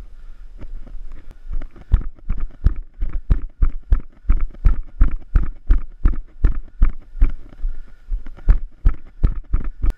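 Running footsteps on a dirt forest trail, picked up by a camera worn by the runner: a steady beat of about three footfalls a second that builds up over the first two seconds.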